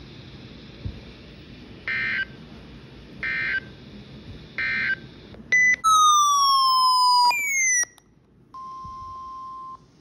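NOAA Weather Radio's EAS end-of-message code heard through a weather radio's speaker: three short bursts of two-tone digital data chirps. Then a loud electronic siren-like alert with falling pitch sweeps, and a steady beep tone of about a second near the end.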